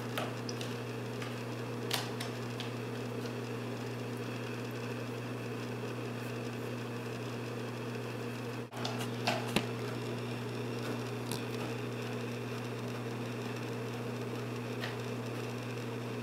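A steady low hum with room noise, and a few light taps and clicks as the cats paw at a wooden cat wheel.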